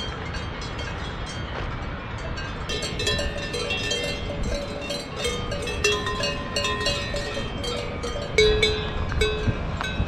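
Several cowbells on grazing alpine cows clanking irregularly at different pitches, starting about three seconds in, over a steady low rushing background.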